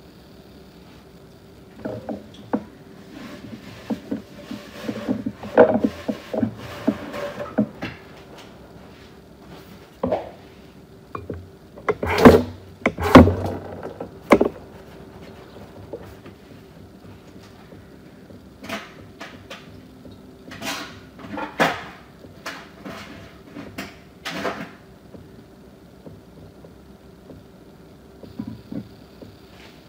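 Irregular knocks, taps and clatters of objects being handled, coming in clusters with the loudest pair about twelve to fourteen seconds in, over a faint steady hum.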